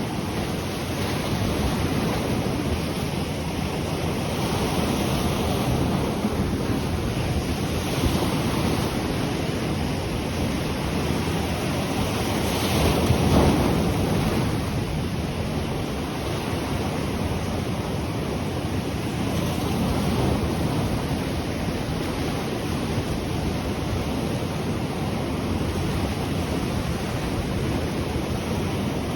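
Sea surf breaking and washing onto the shore in a steady wash, with one larger wave swelling louder about halfway through.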